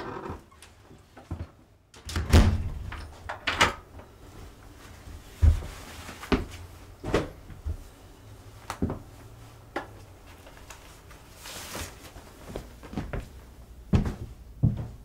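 A house door shutting with a thunk, then a string of separate knocks, clicks and footsteps as someone moves about a small room.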